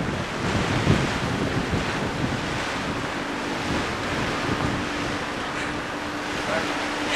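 Wind buffeting a camcorder microphone over open water, with a steady rush of wind and waves. Heavy gusts come near the start, and a faint steady hum comes in about a third of the way through.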